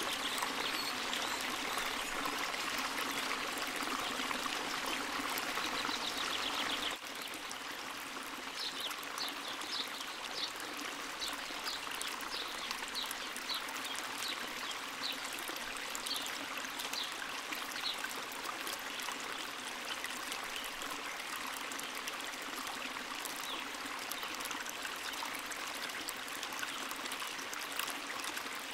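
Running water flowing steadily in a continuous rushing, trickling wash. About seven seconds in, the level drops suddenly, and a run of short high chirps follows for roughly ten seconds.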